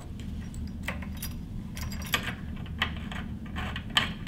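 A few sharp, scattered clicks and taps as an RJ45 plug on a drop cable and its EMC gland fittings are pushed into the port of a lightning protection unit, over a steady low hum.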